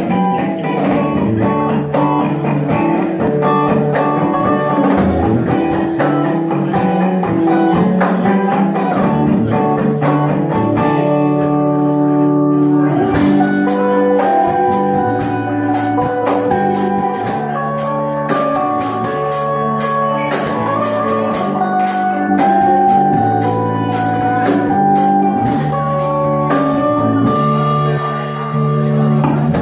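Live rock band playing electric guitars, bass and drums. About halfway through, a steady cymbal beat of about two strokes a second comes in.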